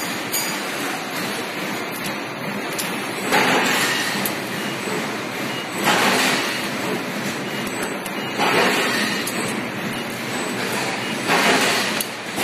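EKO ES2508 all-electric servo press brake, driven by servo motors with no hydraulics, working through a run of small sheet-metal bends. A steady machine-shop noise is broken by four louder surges of about a second each, roughly every two and a half seconds, one per bending cycle.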